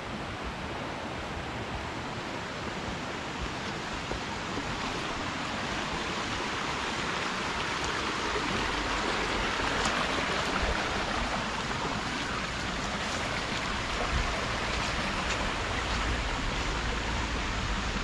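Steady rush of a rocky forest stream flowing over stones, growing louder about halfway through.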